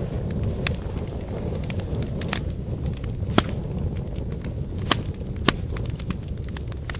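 Campfire of burning firewood: a steady low rumble of flames with irregular sharp crackles and pops of the wood, the loudest pop about three and a half seconds in and two more near the five-second mark.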